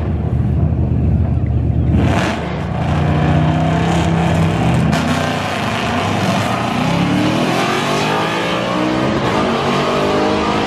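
Two drag cars at the start line, engines running loud with the throttle blipped. About six seconds in they launch at full throttle, the engine pitch rising and dropping back through several gear changes as they pull away down the strip.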